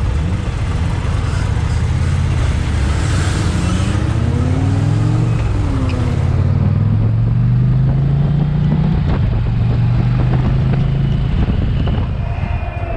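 2020 Indian Challenger's liquid-cooled V-twin engine pulling away from a stop and accelerating. Its pitch rises twice with a gear change between, over steady road and wind noise.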